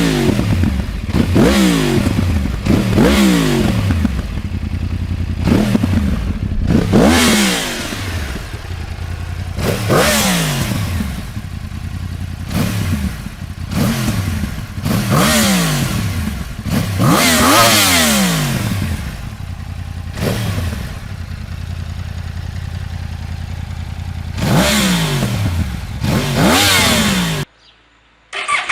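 2015 Yamaha R1's crossplane inline-four revved repeatedly while standing: about a dozen sharp throttle blips, each rising and falling back to idle. The sound cuts off suddenly near the end.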